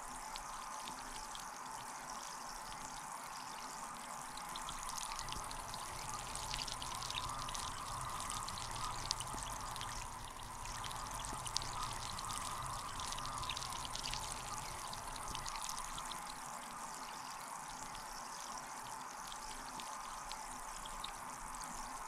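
Carbon dioxide bubbling steadily out of an air stone at the bottom of a filled bathtub, fed through a tube from a homemade bottle gas generator to carbonate the bath water. It is a constant watery rush with many small pops, a little louder in the middle.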